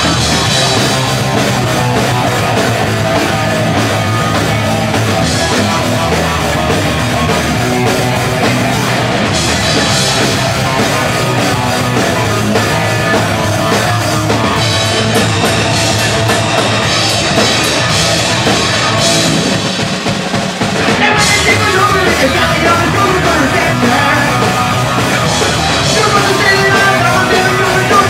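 Live rock band playing loud, with drum kit and electric guitars, heard from within the audience. The music thins out briefly about two-thirds of the way through, then comes back in louder.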